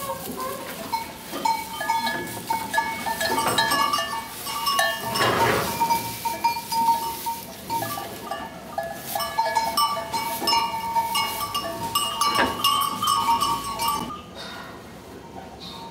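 Sheep in a pen bleating, many calls overlapping one another, quieter for the last couple of seconds.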